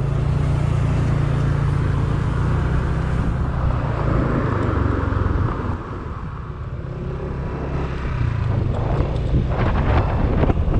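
Motorcycle engine running at a steady idle, then pulling away and running under way, with wind buffeting the microphone in the last few seconds.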